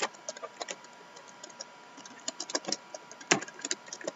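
Irregular light clicks and taps from hands working at a desk, handling trading cards and packs, with one sharper knock about three seconds in.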